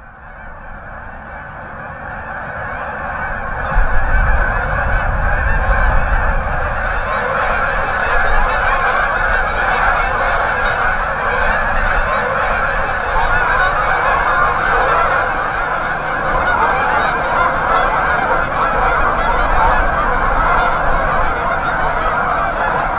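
A large flock of geese honking, many calls overlapping into a continuous clamour that fades in over the first few seconds and then holds steady.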